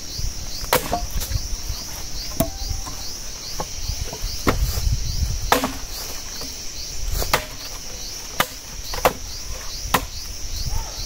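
Firewood being chopped and split: about ten sharp chopping strikes into wood at uneven intervals. A steady pulsing chorus of insects, like crickets, runs behind them.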